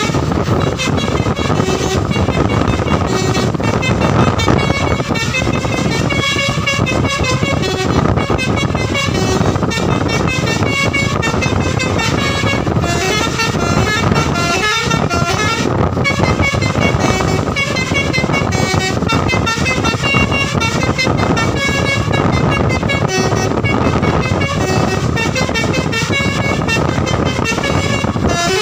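Basuri V3 telolet bus horn playing a melody, a quick run of short, changing horn notes over a steady low rumble.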